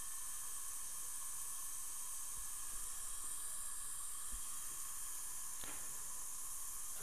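Steady high-pitched background hiss with a few faint steady tones in it, and a faint tick near the end.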